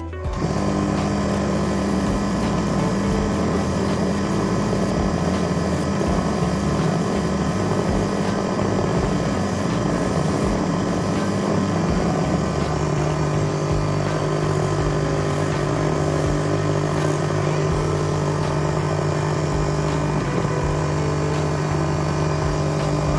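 A motor running steadily with a constant hum, its pitch dropping a step about halfway through.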